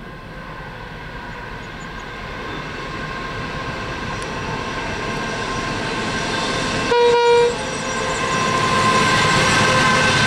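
Diesel locomotives hauling an empty coal train approach and grow steadily louder, and the horn gives one short toot about seven seconds in. Near the end the empty coal hopper wagons roll past.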